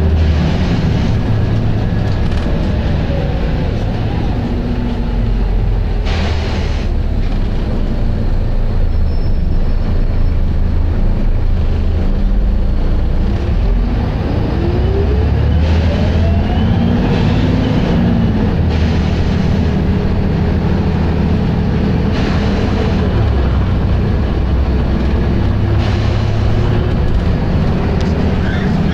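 Volvo B7RLE bus's six-cylinder diesel engine running hard, with its pitch rising about halfway through as it pulls away. Several short bursts of hiss break in over the engine.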